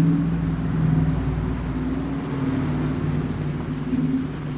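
A motor or engine running steadily with a low hum that wavers slightly in pitch. A deeper rumble under it drops away about two seconds in.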